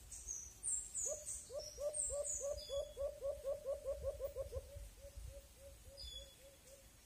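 White-eared brown dove calling: a series of low hooting coos that speed up into a fast run, then slow and fade. A small bird's high, short falling chirps sound above it near the start and once more near the end.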